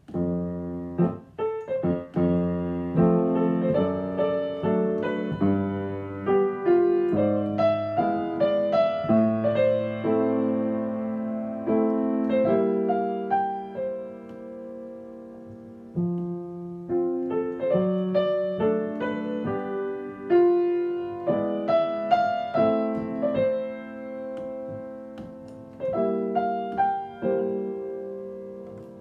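Solo piano playing a pop song by ear, chords under a melody line, with a held chord about halfway through before the playing resumes and a final chord dying away at the end.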